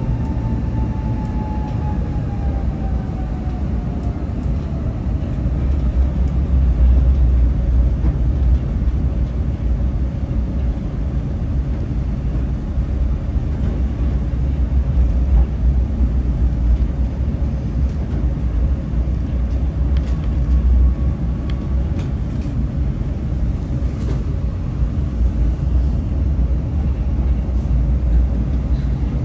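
Tram running along its line, heard from inside: a steady low rumble of wheels on rails. A faint electric whine falls in pitch over the first few seconds, then holds steady.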